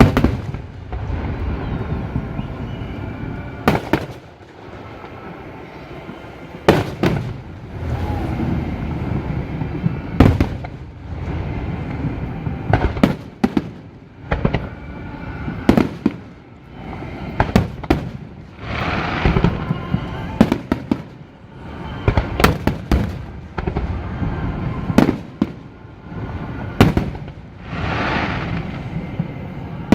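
Aerial fireworks going off in a steady succession of sharp bangs, each followed by a long rolling echo, with a few bursts of crackling near the middle and towards the end.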